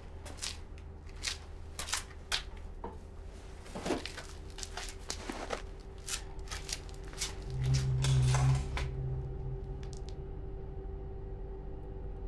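Footsteps on a hard floor and the rustle of a potato sack being lifted and carried, as short irregular knocks and scuffs over a steady low hum. A deeper low tone swells briefly about eight seconds in.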